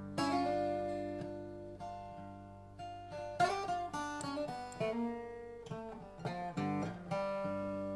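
Dobro (resonator slide guitar) playing an instrumental tune, plucked notes ringing out and fading, with a quicker run of notes about three and a half seconds in.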